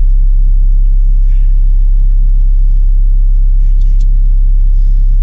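Cat 272D skid steer's diesel engine running at a steady idle, a loud, even low rumble.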